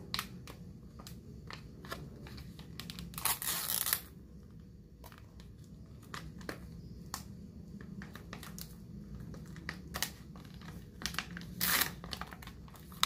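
Plastic jewelry pouch being torn open and handled: crinkling and small crackles throughout, with two longer, louder rips about three seconds in and near the end.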